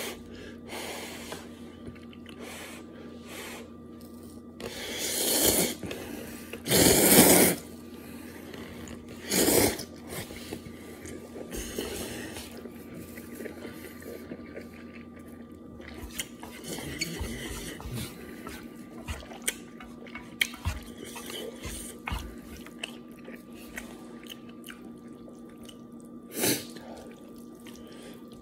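A person slurping saucy stir-fried instant noodles off chopsticks and chewing. There are four loud slurps, the loudest about seven seconds in and the last near the end, with soft chewing clicks between them over a faint steady hum.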